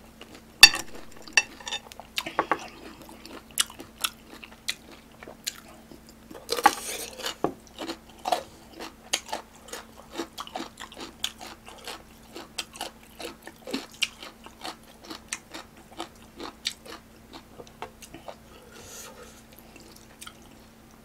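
Close-miked eating sounds of a person eating ramen: wet chewing with many short sharp mouth clicks and smacks, and a longer slurp about six and a half seconds in. A faint steady hum runs underneath.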